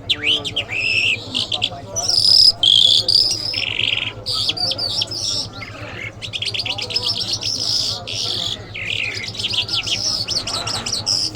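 A caged lark singing a long, varied song of warbled and whistled phrases, with fast trills in the second half.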